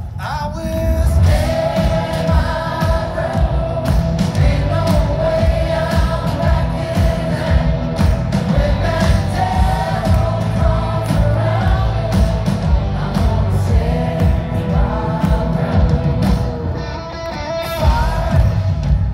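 A live rock band plays through an outdoor PA while a male lead singer sings a melody with long held notes over drums, bass and guitars, heard from the crowd.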